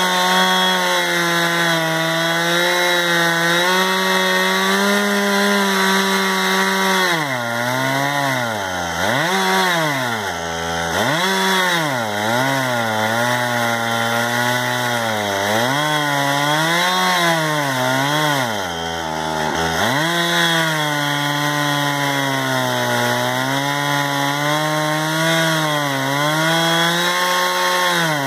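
Two-stroke chainsaw on a chainsaw mill, running hard as it rips a slab lengthwise from a log. For a stretch in the middle the engine speed sags and picks up again and again under the load of the cut, then settles back to a steady pitch.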